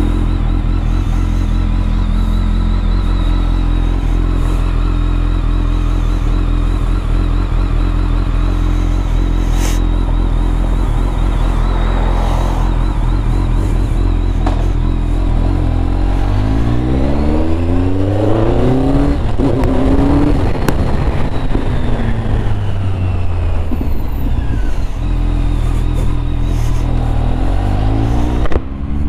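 BMW K1200R Sport's inline four-cylinder engine idling steadily, then, about halfway through, its revs climbing and falling as the motorcycle pulls away, with another rise in revs near the end.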